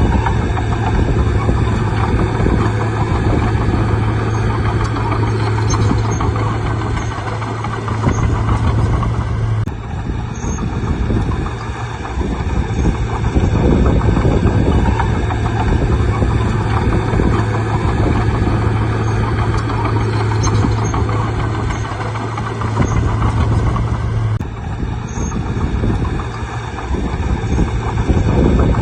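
Bulldozer's diesel engine running under load as it pushes soil, with a steady low drone and a level that swells and eases.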